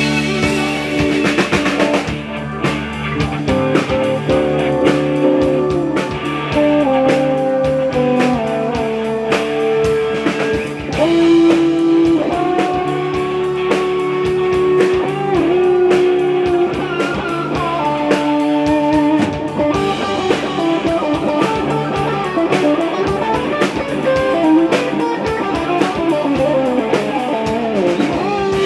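Blues-rock music: an electric guitar plays sustained, bending melody lines over a drum kit.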